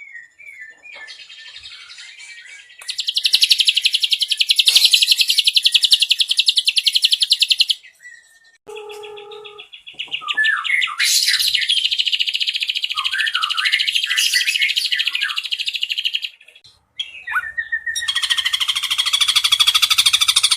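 Ashy drongo singing: three long, rapid trills of several seconds each, the third cut off at the end, broken up by short whistled chirps and pauses.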